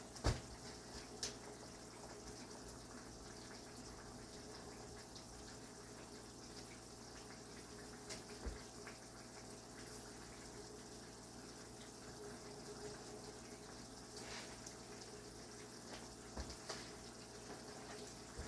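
Quiet kitchen background: a faint steady hum with a few light clicks and knocks scattered through it.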